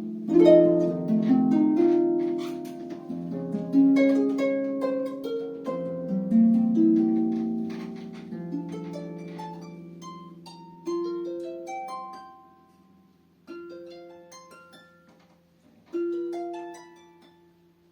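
Solo harp playing plucked notes: flowing arpeggios that thin out about halfway into slower, spaced single notes with short pauses between them.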